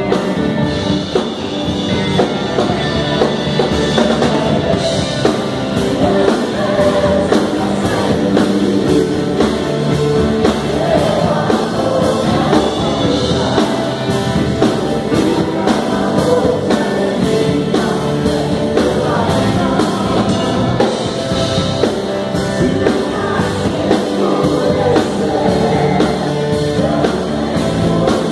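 Live worship band playing a rock-style praise song, with several singers on microphones singing together over a drum kit.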